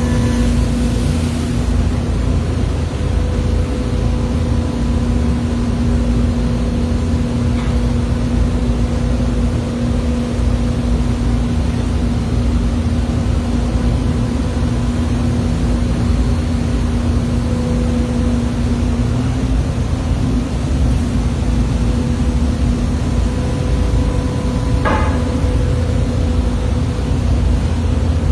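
A motor running steadily with a constant hum over a low rumble, with a brief knock about 25 seconds in.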